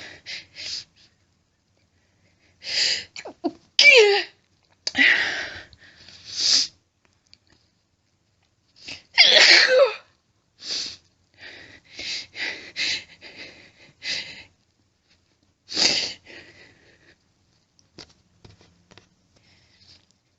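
A woman sneezing over and over in a fit: several loud, wet sneezes muffled by a washcloth, with hitching breaths between them. The loudest sneeze comes about nine seconds in.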